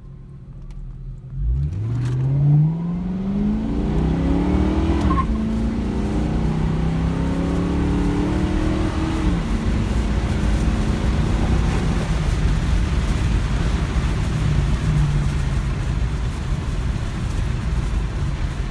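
2000 Mustang GT's 4.6-litre V8 breathing through new Thrush welded mufflers, heard from inside the cabin during a hard launch. The engine note climbs steeply about a second and a half in, then drops twice as the car shifts up, near five and near nine seconds. After that it settles to a steady, loud run with road noise.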